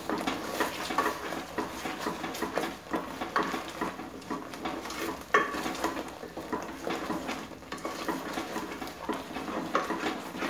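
A spatula stirring and scraping thick green masala paste around an aluminium pot over the flame, with a faint sizzle beneath. Scattered small clicks and knocks of the spatula against the pot, the sharpest about five seconds in.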